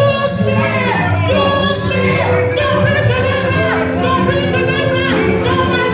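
Congregational gospel singing with instrumental accompaniment: voices holding and sliding between notes over a steady band.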